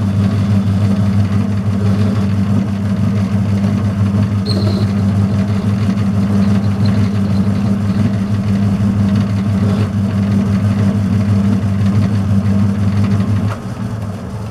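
Metal lathe running under power, its motor giving a steady low hum as the steel shaft turns in the chuck. Near the end the motor is switched off and the hum drops away as the chuck coasts to a stop.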